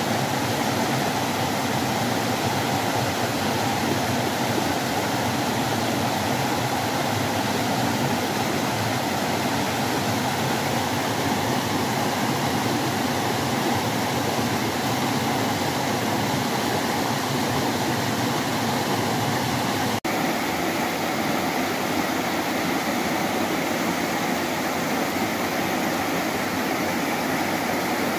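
Steady rushing noise with no change in strength, broken once by a short cut about twenty seconds in, after which it goes on the same.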